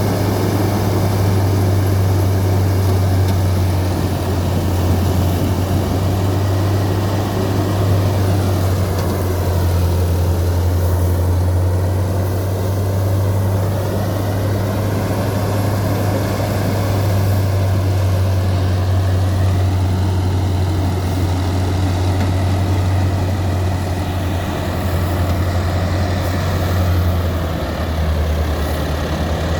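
Straw-making multi-crop combine harvester running steadily: a deep, even engine hum under dense machinery noise.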